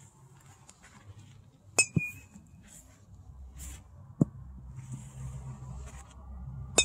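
Metal baseball bat pinging as it strikes the pitched ball, twice: about two seconds in and again at the very end, each a sharp crack with a short ringing tone. A couple of duller knocks fall between.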